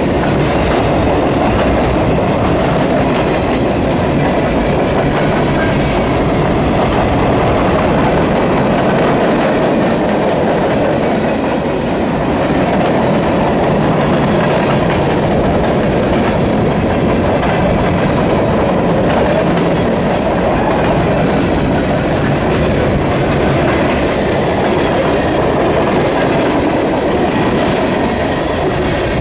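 Mixed freight train of boxcars, centerbeam flatcars and tank cars rolling past at close range: a steady, loud rumble of steel wheels on rail with a clickety-clack over the rail joints.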